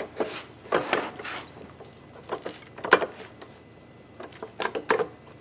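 Irregular metal knocks, clacks and scrapes as a motorcycle's kickstand and foot-peg bracket is wiggled and bumped past the engine and brake lever. The sharpest clacks come about three seconds in and again near the end.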